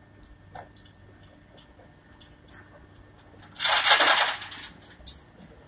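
A short, loud burst of rustling noise lasting about a second, a little past the middle, with scattered faint clicks around it.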